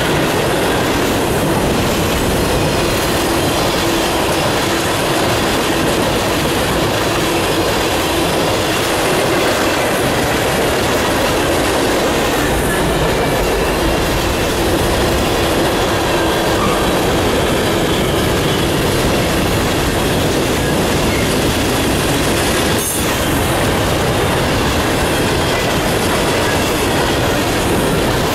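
Freight cars (covered hoppers and tank cars) rolling past close by: a steady, loud noise of steel wheels running on the rails.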